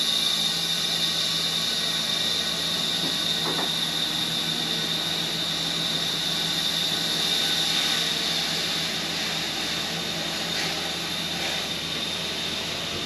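Grain-handling machinery at a silo intake running steadily with a high whine, while a trailer load of triticale is tipped into the intake pit.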